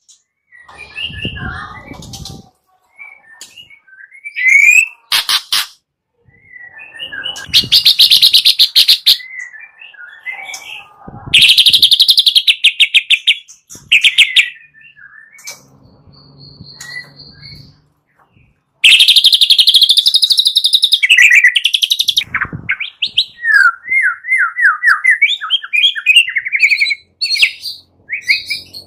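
White-rumped shama (murai batu) singing: three long, loud, fast rattling 'kretek' trills, a second or more each, with varied whistled phrases and chirps between them.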